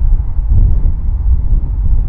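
Gusty wind buffeting the microphone: a loud, rumbling low buffet that keeps surging and dropping.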